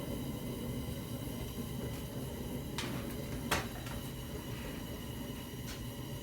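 Three sharp metallic clicks, the loudest about three and a half seconds in, as steel sockets are handled in a tool box drawer, over a steady low background hum.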